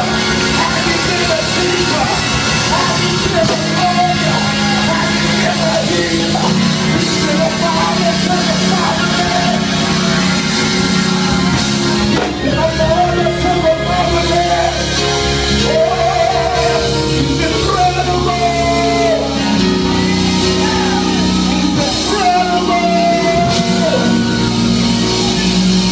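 Music: a singer holding long, wavering notes over steady sustained chords from the accompanying instruments.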